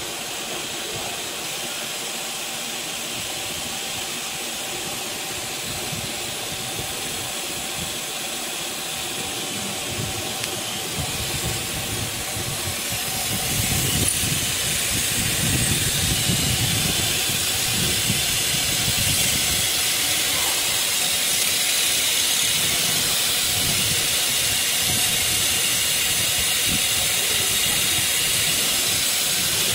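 Small CNC router's spindle running with a steady whine and hiss while it taps threaded holes in a metal bar. About thirteen seconds in it gets louder, as the tap cuts and aerosol lubricant is sprayed onto the work.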